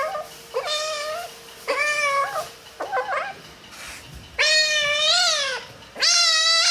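Kitten meowing over and over in complaint while being brushed, about six meows, the last two longer and louder.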